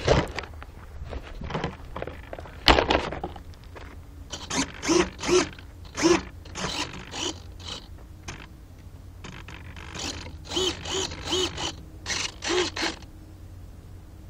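Small RC servos in the Wing Dragon flying wing whirring in short buzzing bursts, about a dozen in two clusters, as the control surfaces are moved. There is a knock from handling the airframe at the start and another about three seconds in.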